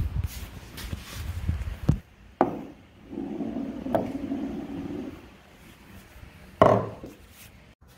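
Pool ball rolling on a melamine board and knocking against a wooden rail test piece with cushion rubber, as test bounces. There are several sharp knocks, the loudest about six and a half seconds in.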